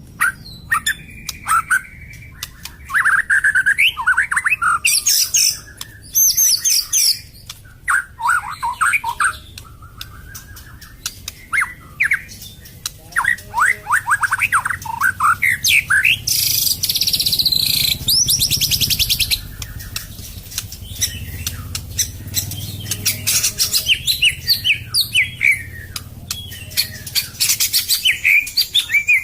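White-rumped shama (long-tailed murai batu) singing a loud, varied song of quick whistled phrases and rapid chattering notes, with a harsh, high buzzing passage a little past the middle.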